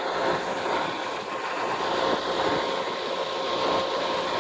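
A steady engine hum with a constant tone, under a haze of wind noise on the microphone.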